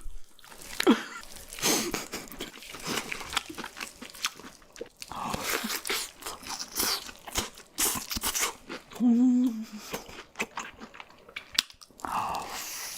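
Close-miked mukbang eating: crunchy bites and chewing, with irregular crackling crunches throughout.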